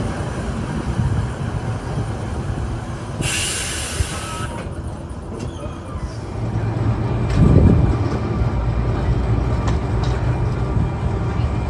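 Open-top boat tram running along the rails: a steady low rumble of wheels and running gear, with a burst of hiss for about a second and a half a little after three seconds in and a heavier thump about two-thirds through.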